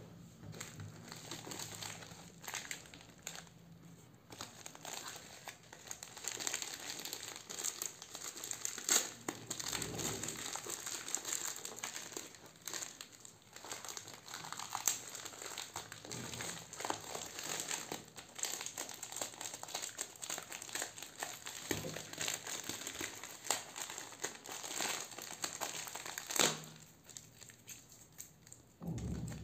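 Plastic courier mailer crinkling and crackling in the hands as it is worked open and torn, a dense run of small rustles and crackles that eases off for a couple of seconds near the end.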